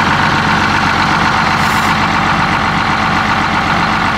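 Detroit Diesel 6-71 two-stroke inline-six diesel of a 1980 Crown Supercoach bus idling steadily as it warms up, its tick-over levelling off.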